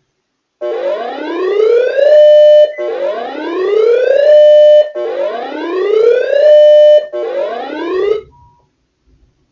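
Electronic siren tone that sweeps up in pitch, holds briefly at the top and cuts off, repeating about every two seconds. There are three full rises and a fourth cut short. It serves as an alert sound leading into an Emergency Alert System broadcast.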